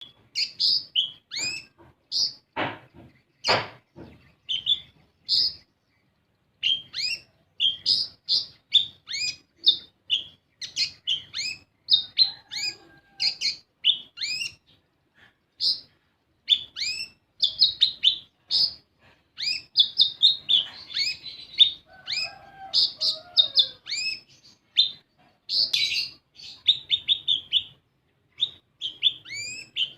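Kolibri ninja sunbird singing: fast bursts of short, high, sharp chirps and downward-slurred notes, with brief pauses between phrases. A lure song of the kind played to get other sunbirds singing.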